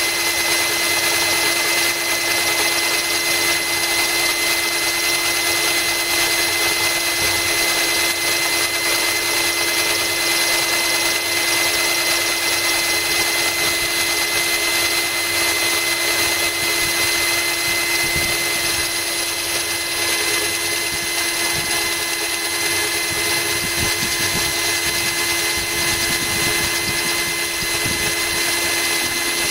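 Cordless drill running steadily with an even whine, its bit grinding into a glass bottle kept wet by a trickle of hose water to cool the cut.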